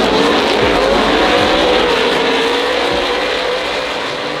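Race vehicle engine running hard, its pitch wavering up and down as it revs, fading slightly toward the end.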